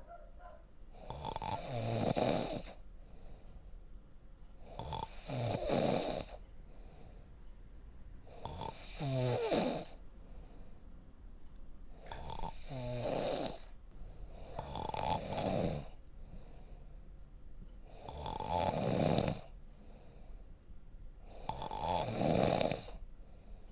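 A person snoring in a steady rhythm, one snore about every three to four seconds.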